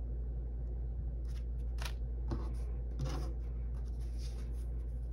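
Paper banknotes being handled and counted: a scattering of short crisp rustles and flicks of the bills, over a steady low hum.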